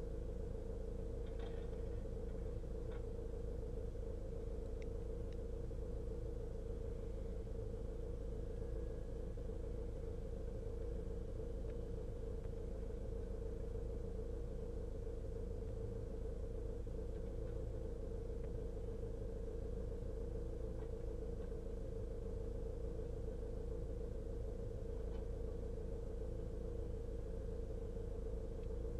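Vehicle engine idling, a steady low rumble with a constant hum, heard from inside the cab.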